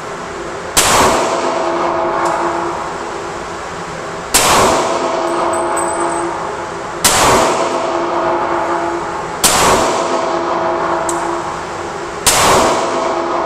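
Five single shots from a Smith & Wesson M&P40 .40-calibre pistol, spaced about two and a half to three and a half seconds apart, each followed by a long ringing echo that dies away over a couple of seconds. A steady hum runs underneath.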